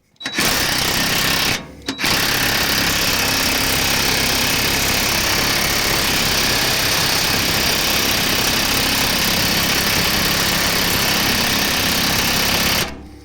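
Impact wrench hammering on a seized stabilizer-bar bushing bracket bolt: a short burst, a brief pause, then about eleven seconds of continuous hammering that stops abruptly. The bolt is so tight that the long hammering leaves it smoking and scalding hot.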